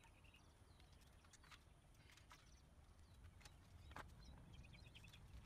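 Near silence, with a few faint clicks and taps from hands handling wiring and plastic connectors.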